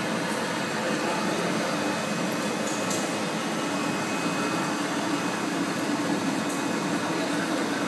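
Steady machine hum and whir from a running butyl rubber sheet extrusion line with its conveyor and rollers, with a faint steady high tone and a few light ticks.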